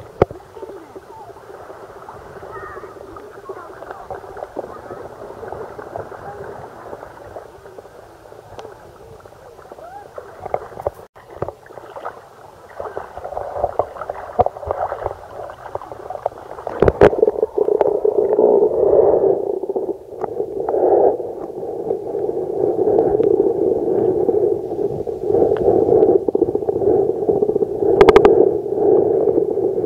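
Muffled water noise heard through a camera in shallow sea water: a faint hollow rush with scattered small knocks. About halfway through, a sharp knock comes as the camera goes under, and from then on a louder, steady muffled rushing and gurgling continues, with another sharp knock near the end.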